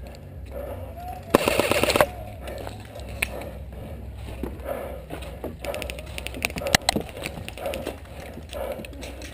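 Airsoft rifle firing a short full-auto burst of rapid clicks about a second and a half in, followed later by scattered sharp single clicks and pops.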